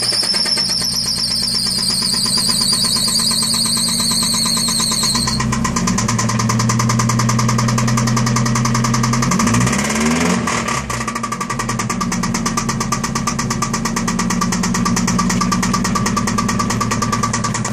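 Mazda MX-5 mk1's 1.8 litre four-cylinder engine idling just after starting, with a high-pitched squeal that falls slightly and cuts off about five seconds in, and a fast, even ticking through the idle. This is the noise the engine began making after running low on oil, which the owner thinks means it is broken.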